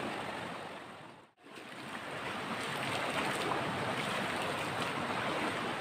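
Shallow river water rushing over rocks, a steady wash. It fades out and back in about a second and a half in, then goes on with water sloshing around the legs of people wading through the river.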